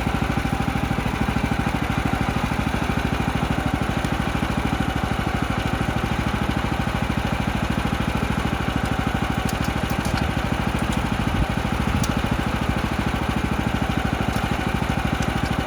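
Small gas engine of a band sawmill running steadily at an even speed, with a fast, regular firing beat.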